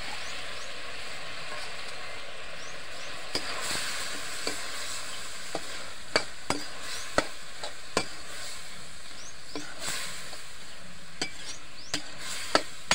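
Chopped tomatoes and vegetables sizzling in hot oil in a metal kadai, stirred with a spatula that knocks and scrapes against the pan. The knocks come now and then at first and grow sharper and more frequent from about halfway.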